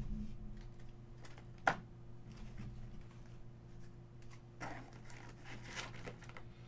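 Quiet handling noises at a table: one sharp click about a second and a half in and soft rustling near the end, over a steady low electrical hum.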